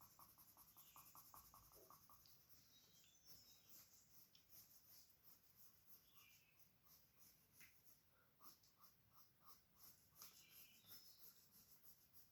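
Faint pencil strokes on paper as a drawing is shaded, a quick regular run of short strokes for the first two seconds, then sparser scratches.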